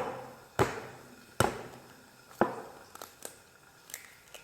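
Eggs being cracked by tapping them against the edge of a bowl to separate the yolks: a series of sharp taps, three loud ones about a second apart, then a few lighter taps.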